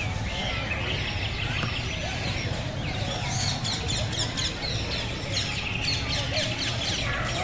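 Many birds chirping and calling at once, in rapid runs of short chirps that crowd together about three seconds in and again near six seconds, over a steady low rumble.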